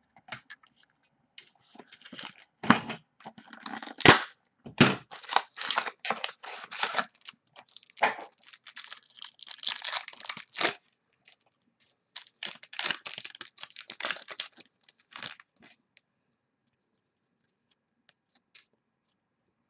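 Trading-card pack wrappers being torn open and crinkled, in a long run of irregular rustling tears that stops a few seconds before the end.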